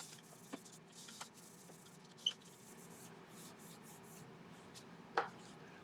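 Faint scratchy rubbing in short spells, with a few light clicks, as sanding sealer is wiped onto a small turned wooden handle.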